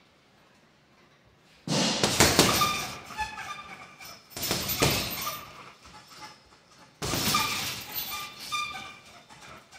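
Gloved punches landing on a hanging heavy bag in three bursts of combinations: the first about a second and a half in, then around four seconds and seven seconds in. Each burst is followed by a second or so of metallic ringing as the bag swings on its hanging chains.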